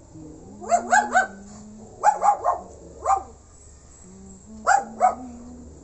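A dog barking in quick runs: three barks, then three more, a single one, and two near the end.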